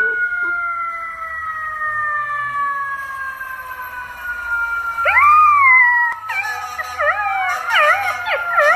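A golden retriever puppy howling along with a siren. A long, slowly falling siren wail holds through most of the stretch. From about five seconds in the puppy joins with one rising-and-falling howl, then a run of wavering howls that go up and down over the siren.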